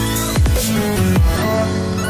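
Electronic dance music with deep bass hits that drop in pitch and a rising sweep. About one and a half seconds in the bass hits stop, leaving held chords.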